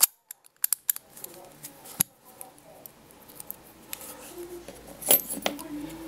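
Sharp metallic clicks and light scraping from a brass ABUS padlock being handled and fitted with lock-picking tools: a quick run of clicks in the first second, a single sharp click about two seconds in, and another run of clicks about five seconds in.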